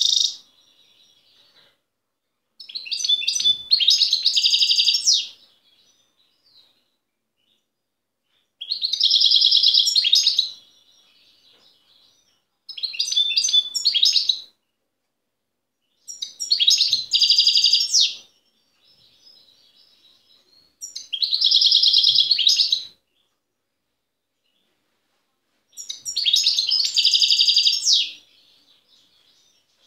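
European goldfinch singing its natural wild song in six rapid twittering, trilling phrases of two to three seconds each, with pauses of a few seconds between them.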